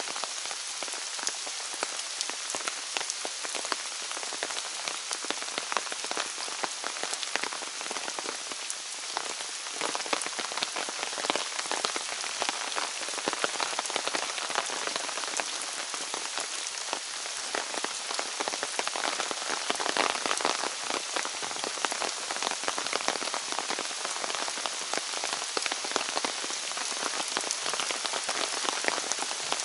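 Steady rain falling, a dense patter of many close drops without a break.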